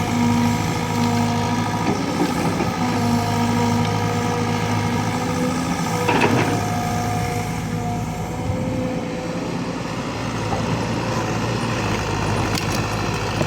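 Caterpillar excavator's diesel engine running steadily while digging, with whining tones that shift in pitch over it and a brief noisy burst about six seconds in.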